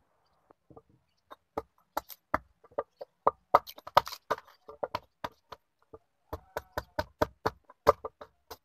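A small hatchet chopping a block of scrap wooden frame timber braced on a wooden beam: sharp, irregular chopping knocks at about three a second, starting about a second and a half in.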